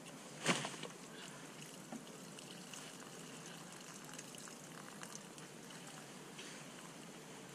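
A single sharp wet slap about half a second in as a large mirror carp is laid down in a padded unhooking cradle, then faint wet handling noises from the fish and the mat.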